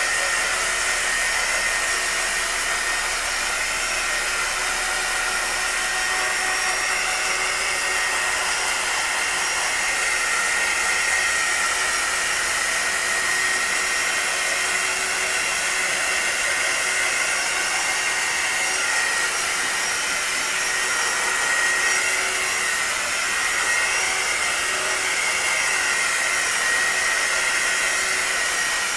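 Handheld electric heat gun running steadily, a rush of blown air with a thin motor whine over it, played over wet poured acrylic paint to bring up cells.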